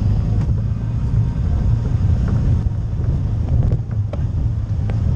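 CFMoto CForce ATV engine running steadily as it rides over a rocky dirt trail, a continuous low rumble with a few brief knocks from the rough ground.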